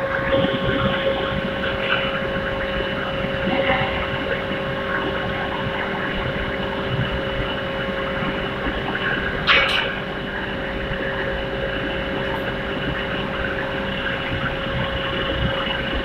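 450 kW one-ton induction melting furnace running under power while melting copper: a steady electrical hum with constant high tones over a noise haze. A lower tone drops out near the end, and a brief sharp noise stands out about halfway through.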